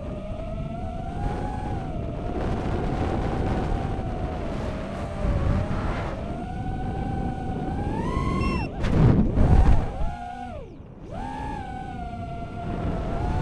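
Onboard sound of a 5-inch FPV racing quadcopter, four brushless motors (Racerstar BR2306S 2700kv) spinning DAL 5045 bullnose props, whining at a steady pitch that rises and falls with the throttle. Near the middle the whine climbs, then drops away under a loud burst of rushing air. It glides down and spools back up a couple of seconds later.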